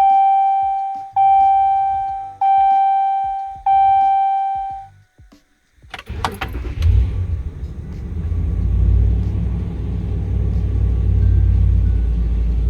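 Ram 1500 pickup's key-on warning chime dinging four times, then after a brief pause the engine cranks on its newly fitted starter, fires and settles into a steady idle. The prompt start shows the no-crank fault from the old, failing starter is cured.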